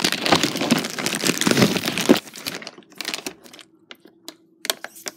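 Plastic packaging around a case of bottled water crinkling as bottles are handled, for about two seconds, then a few scattered light clicks and taps.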